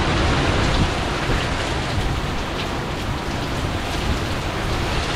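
Hurricane wind and rain: a steady rush of heavy wind-driven rain with gusting wind.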